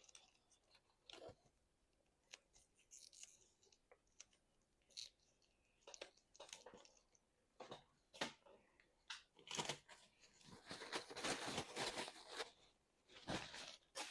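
Close-miked eating: scattered chewing clicks and crunches that thicken into a longer run of loud crunching about ten seconds in, with one more crunch near the end.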